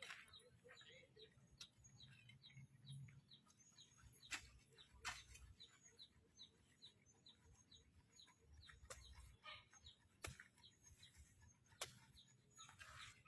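Faint, rapid chirping of small birds, several short chirps a second, with a few sharp clicks.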